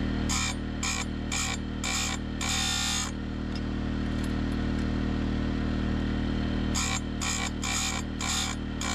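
Oregon bench chain grinder running with a steady motor hum while its grinding wheel is lowered onto the saw chain's cutters in short grinding strokes, about two a second. There are five strokes, then a pause of about four seconds while the chain is moved on, then another run of strokes near the end.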